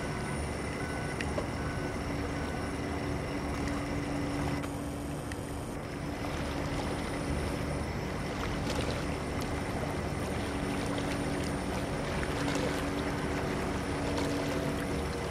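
A steady low engine hum under a constant wash of noise.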